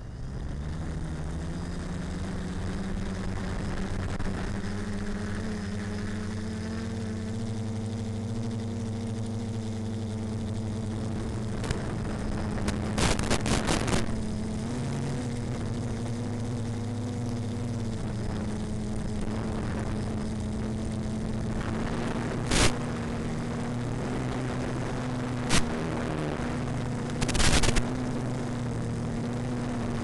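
Electric motors and propellers of a small FPV model aircraft spinning up, rising in pitch over the first few seconds, then droning steadily in flight. A few short crackling bursts cut through the drone, a cluster near the middle and single ones later.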